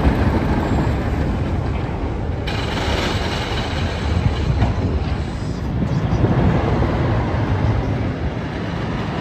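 Roller coaster train rumbling along its track, a loud, continuous low rumble that grows brighter and harsher about two and a half seconds in.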